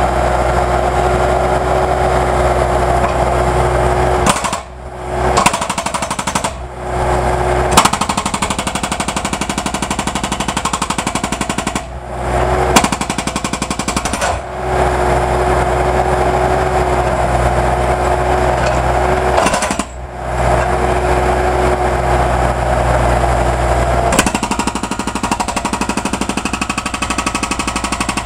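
Jackhammer-type breaker pounding concrete in a fast, continuous run of blows, stopping briefly a few times, with an engine running steadily underneath.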